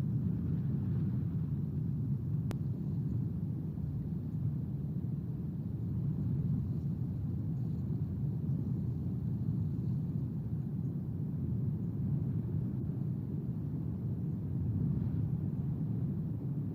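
Wind buffeting an outdoor nest-camera microphone: a steady low rumble.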